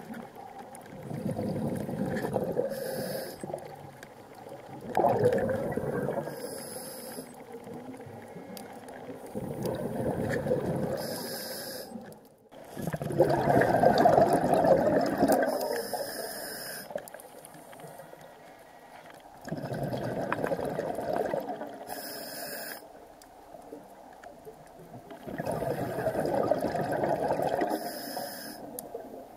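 A scuba diver breathing through a regulator underwater: a surge of exhaled bubbles every five to six seconds, each followed by a short hiss of inhaled air.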